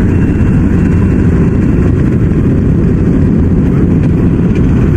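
Yanmar rice combine harvester's diesel engine running steadily, a constant low drone.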